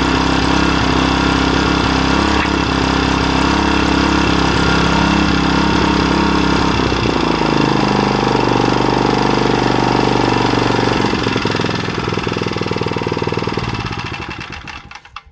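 Small 3.5-horsepower gas engine running steadily, its pitch dropping about halfway through, then winding down and stopping near the end.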